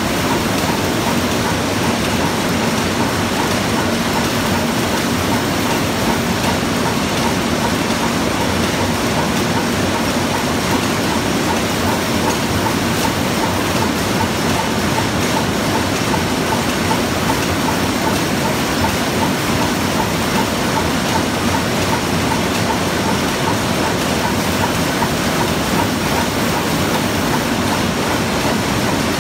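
A row of screw-making machines running: a loud, steady mechanical din with a fast, even clatter.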